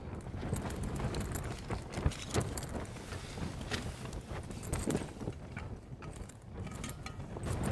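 Rustling and irregular knocks of a sleeping bag, clothing and gear being handled at close range inside a small tent, with a few sharper knocks about two seconds in and again near five seconds.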